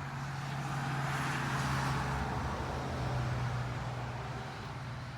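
ATVs driving past, a steady engine note with a swell of engine and tyre noise that builds about one to two seconds in and then fades.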